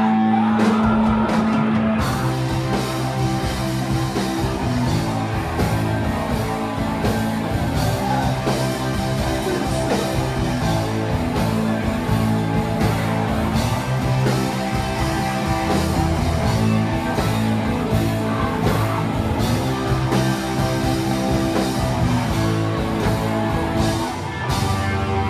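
Live rock and roll band playing: electric guitars, tenor and baritone saxophones and drums. It opens on a held chord, breaks into a driving beat about two seconds in, and settles back onto a held chord near the end.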